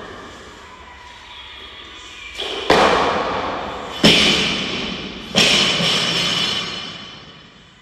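Loaded barbell with bumper plates dropped onto a wooden lifting platform. It hits the platform three times about a second and a half apart, and each thud is followed by a ringing rattle from the steel bar and plates.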